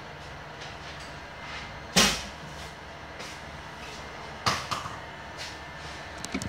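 Two sharp knocks, a loud one about two seconds in and a second about four and a half seconds in, over a steady low machine hum.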